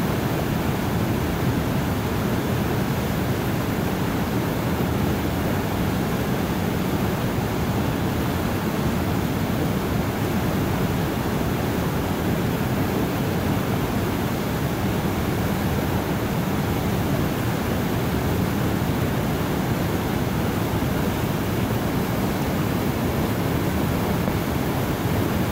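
Fast, muddy river water rushing over rocks through rapids, a steady unbroken rush with no let-up.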